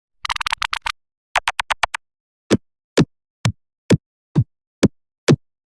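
Electronically processed sound-effect edit: a fast stutter of sharp clicks about a quarter second in, a shorter stutter just after a second in, then seven short hits about half a second apart, each dropping quickly in pitch.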